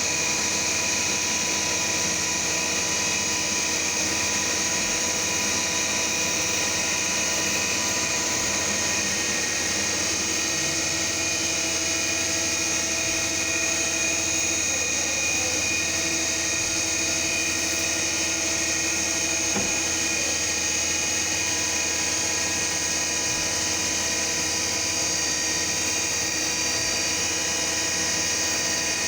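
CNC milling machine running steadily, its spindle giving a constant high whine over a mechanical hum.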